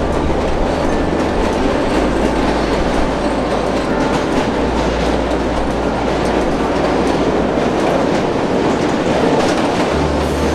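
Passenger train running along the rails, heard from inside the carriage: a steady, loud rumble of wheels on track.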